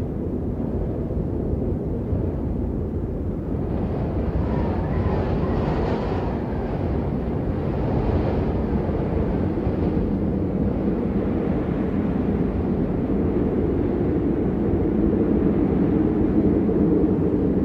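Wind blowing, a steady low rushing noise, with a stronger, hissier gust about four to nine seconds in.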